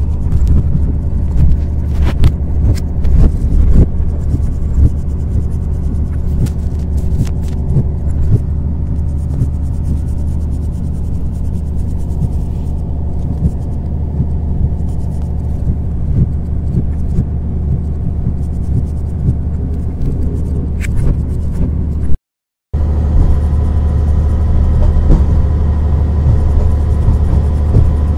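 Train running along the rails, heard from the locomotive cab: a loud, steady low rumble with a constant drone and scattered sharp clicks and knocks. The sound drops out completely for about half a second roughly three-quarters of the way through, then carries on.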